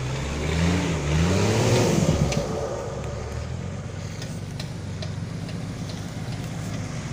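Off-road 4x4's engine revving up and down under load as it climbs a steep slope, then settling to a lower, steadier note about three seconds in, with occasional sharp ticks.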